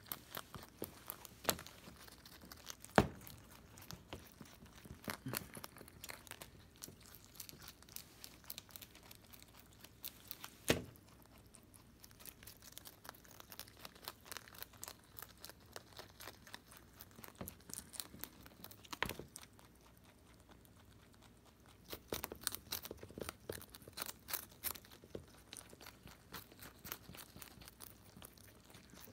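Holland Lop rabbit chewing raw cabbage leaf: quick crisp crunches and tearing bites, with a few sharper, louder snaps about three and eleven seconds in and a short pause in the chewing around twenty seconds.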